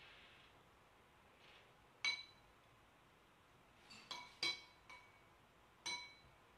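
Tableware clinking lightly against glass or ceramic about six times, each clink with a short ring: one about two seconds in, a quick cluster around four to five seconds, and another near the end.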